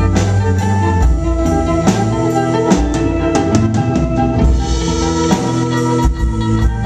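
Live rock band playing an instrumental passage: drum kit hits with snare and bass drum over sustained chords, in a rough, distorted audience recording.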